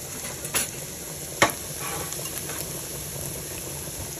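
Sliced onions frying in oil in a nonstick pan, a steady sizzle, with two sharp knocks, the louder about a second and a half in.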